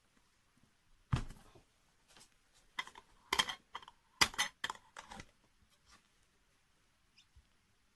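Metal twist-off lids being screwed tight onto hot glass jars of marinated cucumbers: a heavy knock about a second in, then a quick run of sharp clicks and clinks of lid on glass for about two seconds.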